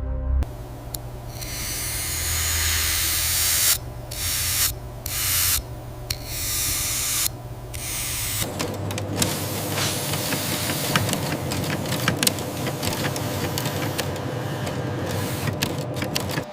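Machine-shop noise: a hissing spray that stops and starts several times, then from about halfway a denser mechanical noise full of rapid clicks and scraping.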